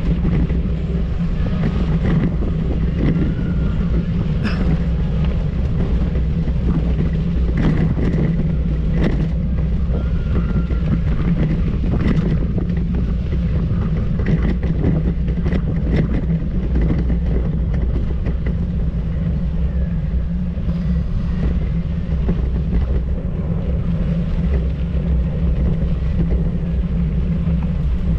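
A vehicle engine running steadily, with occasional knocks and rattles over it.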